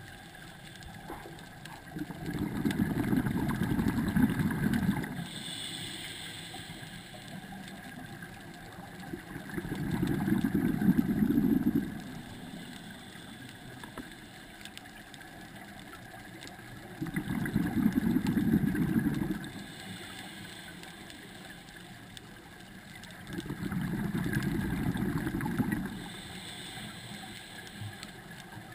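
Scuba diver breathing through a regulator underwater. There are four bursts of bubbling exhalation, each about two and a half seconds long and about seven seconds apart, and after each a short hiss of inhalation through the regulator.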